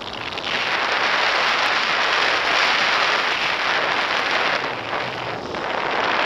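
Wind rushing over the camera microphone of a tandem paraglider in flight: a loud, steady rushing hiss that eases a little near the end.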